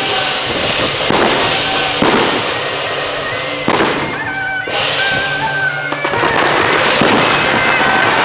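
Strings of firecrackers crackling continuously, swelling and easing about once a second, over traditional temple procession music with a high, held melody line.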